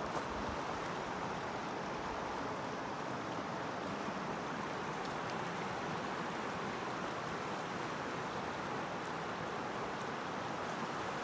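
Steady rush of fast-flowing water, an even, unbroken noise with no surges.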